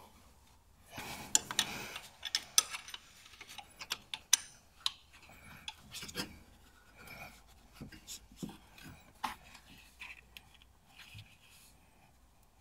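Hand tools working on the timing belt tensioner pulley as it is re-tensioned and its bolt tightened: a run of irregular sharp metallic clicks and short scrapes, thinning out near the end.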